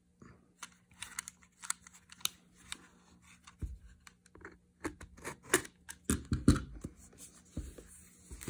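Scattered clicks and scratches of a cardboard earbud box being handled and its seal sticker picked open, with a few dull knocks of the box against the table, the loudest about two-thirds of the way through.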